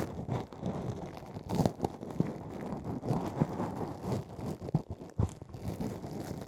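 Close ear-cleaning sounds: a tool scraping and rubbing inside the canal of an ear microphone, a run of irregular crackly scratches with a few sharper crackles.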